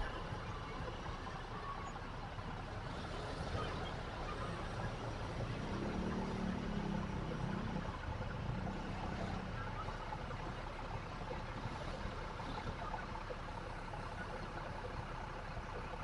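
A motor vehicle's engine running steadily, with a low wavering hum for a few seconds starting about six seconds in.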